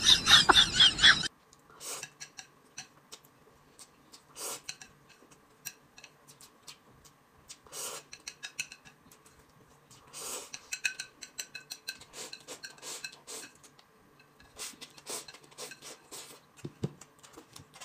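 Quiet, intermittent eating sounds: chopsticks clicking and scraping on a ceramic plate, with short slurps of buckwheat noodles. A louder burst of noise comes in the first second.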